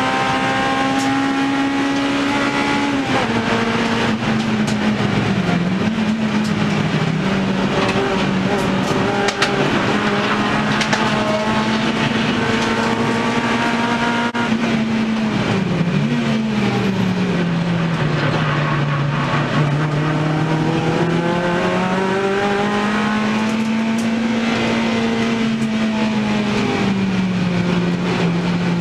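Honda Civic EP3 race car's four-cylinder engine heard from inside its stripped, caged cabin at racing speed, over a constant rush of road and tyre noise. The engine note climbs and then drops sharply several times as the car brakes and shifts for corners. It sits at its lowest for a few seconds past the middle before building again.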